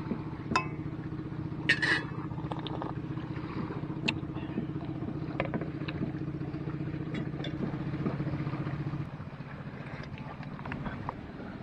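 A steady engine drone from an unseen motor, which drops away about nine seconds in. Near the start, a few metal clinks of a utensil stirring in a stainless steel mug.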